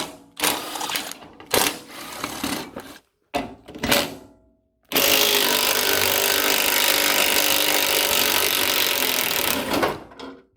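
A power tool undoing the hood fasteners on a Massey Ferguson 25 tractor. It runs in several short bursts, then runs steadily for about five seconds before stopping.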